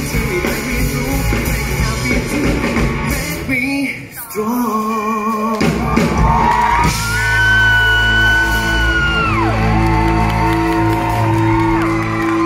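Live pop-rock band with a male singer: full band playing, then a brief drop about four seconds in, after which long held sung notes ring over a sustained chord as the song draws to its close.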